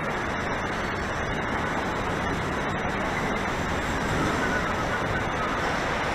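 Steady city street traffic noise, an even hum of passing vehicles with no single event standing out.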